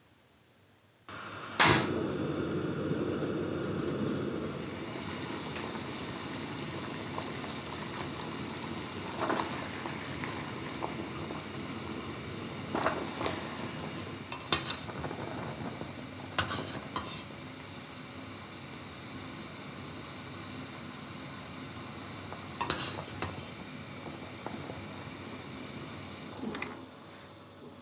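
Water at a rolling boil, bubbling steadily in a stainless steel pot while tteokbokki rice cakes are blanched. A metal mesh skimmer clinks against the pot every few seconds, loudest just after the boiling starts.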